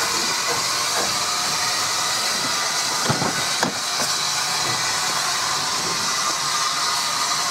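Steam hissing steadily from Beyer-Peacock 0-6-0T steam tank locomotive 'The Earl' as it moves slowly along the track, with two sharp knocks about three seconds in.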